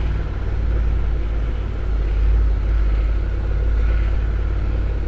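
Honda NC750X motorcycle's parallel-twin engine running steadily at low speed, with tyre rumble over large stone paving.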